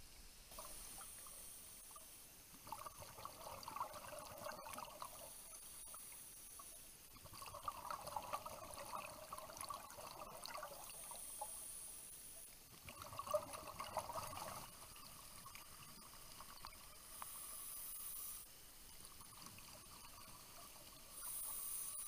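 Scuba diver breathing through a regulator underwater: a short hiss on each inhale, then a burst of exhaled bubbles gurgling, three times over, with a faint steady hum between breaths.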